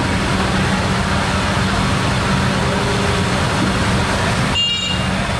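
Market street noise: a motor vehicle engine running steadily with voices around it, and a short high tone about four and a half seconds in.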